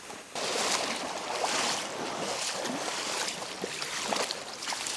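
Water splashing and sloshing close to the microphone, a rushing crackle that starts suddenly about half a second in.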